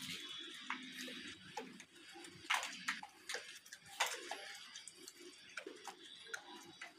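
Faint, irregular small clicks and ticks as gray langurs pick scattered grain off a concrete floor and eat it.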